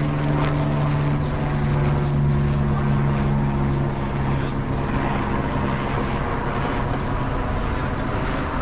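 Steady engine drone with a low hum that holds its pitch.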